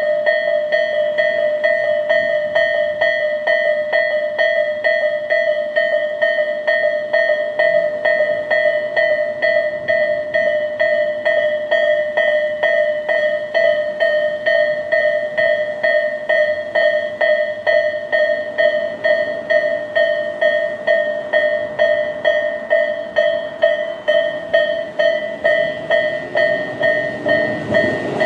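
Japanese electronic railway level-crossing alarm in the Tobu Railway "Tobu sound A" tone, sounding from both sides of the crossing. It rings a steady, fast, evenly repeating two-tone ding, warning that a train is approaching.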